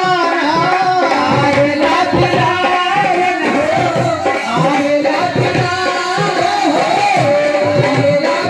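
Live Indian folk devotional song (a sohar): harmonium melody over a quick, steady tabla beat, with a voice singing the tune.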